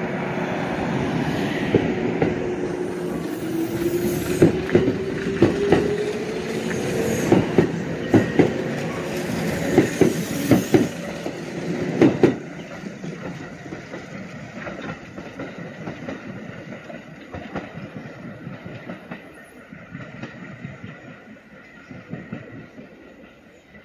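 Kintetsu electric train pulling out of a station: its motor whine rises steadily in pitch as it gathers speed, and its wheels knock over the rail joints in quick pairs, loudest about 12 seconds in. The sound then drops away and fades as the train moves off.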